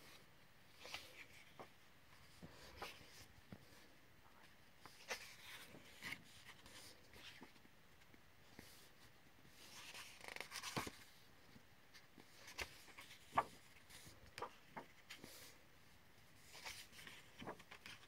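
Faint, irregular paper handling: soft rustles and light ticks of pages of a colouring book being handled, with a denser stretch of rustling about ten seconds in and a sharper tick about three seconds later.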